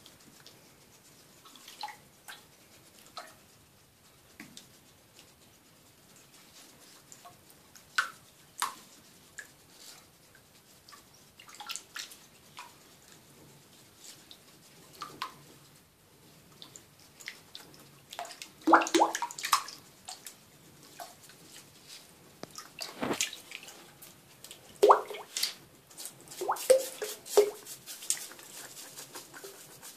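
Shallow water in a sink splashing and dripping in scattered small bursts as hedgehogs paddle and shift about, with louder clusters of splashes in the second half. Near the end a toothbrush starts scrubbing over a wet hedgehog's quills.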